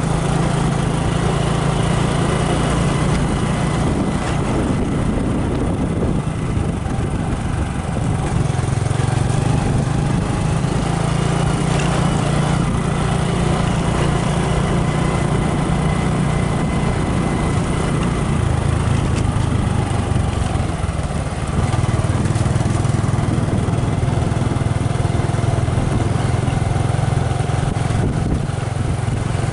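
Small motorcycle's engine running steadily under way, with road and wind noise. The engine eases off briefly just past twenty seconds in, then picks up again.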